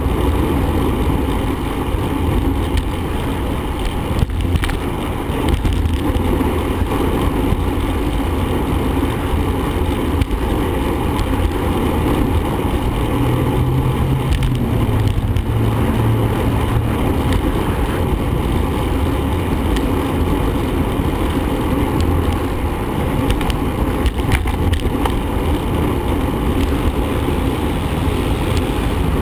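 Steady rumble of wind and road noise on the microphone of a camera riding along on a bicycle, with a low hum rising briefly about halfway through.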